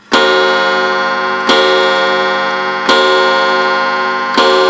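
Commodore 35-day wall clock striking four o'clock: four strokes about 1.4 s apart, each one ringing on until the next.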